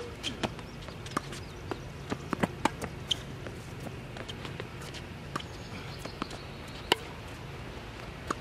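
Tennis rally on a hard court: sharp pops of racket strings hitting the ball and of the ball bouncing, with scuffing footsteps between them. The loudest pops come right at the start and about seven seconds in.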